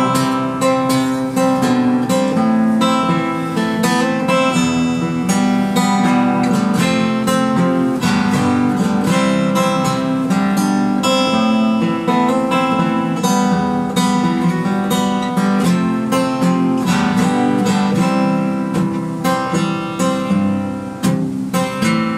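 Acoustic guitar strummed in a steady rhythm, chords ringing, as an instrumental passage with no singing.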